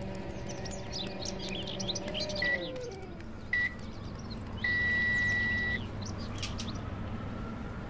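Birds chirping and tweeting for the first few seconds, then electronic beeps: two short beeps about a second apart, followed by one steady beep about a second long, the loudest sound.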